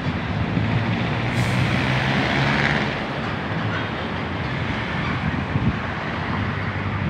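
Steady engine rumble of motor traffic, with a brief hiss rising and fading from about one and a half seconds in.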